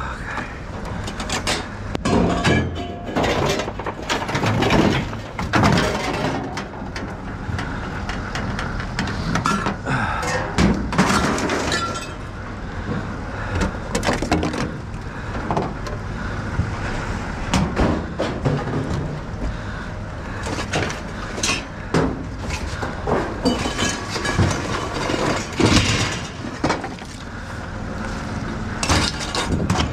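Scrap metal being unloaded by hand from a pickup bed onto a scrap pile: repeated irregular clanks, crashes and rattles of sheet-metal appliances, wire shelving and metal poles hitting the truck bed and the heap. A steady low hum runs underneath.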